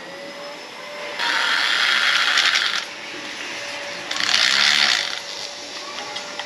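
Corded power drill boring into the ceiling at a metal mounting bracket, in two bursts of about a second and a half and a second, with a steady whine continuing between them.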